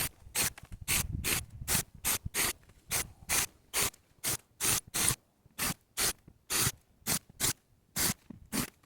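Plastic P-cones being twisted off threaded form-tie separator rods by hand: quick rasping scrapes, about three a second, each twist of the threads a short burst.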